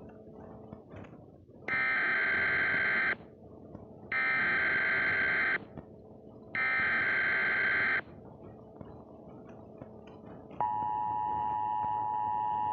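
Emergency Alert System signal: three electronic SAME header data bursts, each about a second and a half long, then about ten seconds in the steady two-tone EAS attention signal begins and holds.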